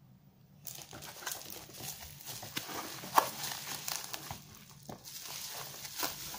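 Bubble wrap crinkling and crackling as a wrapped set-top box is handled and lifted out of its cardboard box, starting about a second in, with one sharper crack near the middle.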